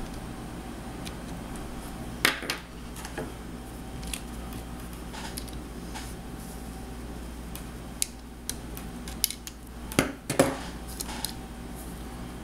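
Light clicks and clinks of small plastic and metal parts as an RC car's rear hub and hex adapter are worked with a metal pick. There are two clicks about two seconds in and a scattered cluster from about eight to eleven seconds, over a steady low hum.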